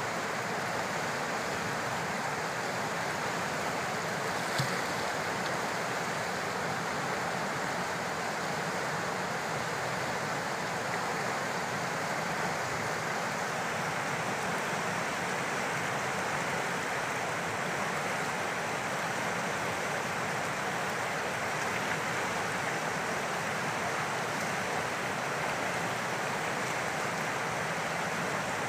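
River water rushing steadily over rapids, an even, continuous wash of flowing water, with one short click about four and a half seconds in.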